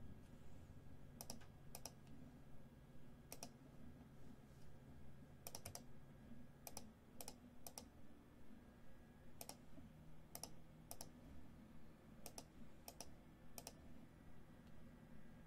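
Near silence with faint, irregular clicks from a computer keyboard and mouse, some in quick pairs, over a low steady room hum.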